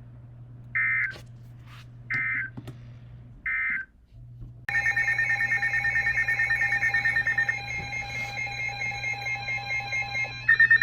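Three short bursts of Emergency Alert System digital data tones, about a second apart. Then a loud, pulsing electronic alert sound with several pitches at once starts suddenly, and near the end it turns into a fast, even beeping.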